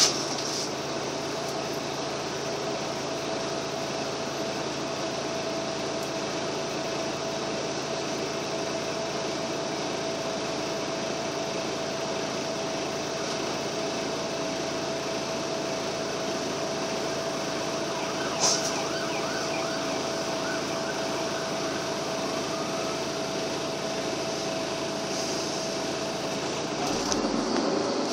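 Interior of a Karosa B941E articulated city bus standing with its diesel engine idling: a steady drone with a steady whine, and a single knock about two-thirds of the way through. Near the end the whine stops and the engine revs up in rising pitch as the bus pulls away.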